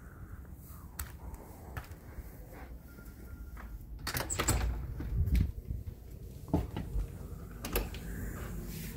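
A front door being opened, with clicks and knocks of its handle and latch. The loudest cluster comes about four seconds in, and a few more knocks follow.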